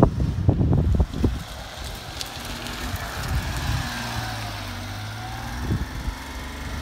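Honda Acty kei truck's small three-cylinder engine running steadily as the truck drives past and away. Wind buffets the microphone in a rumble for about the first second.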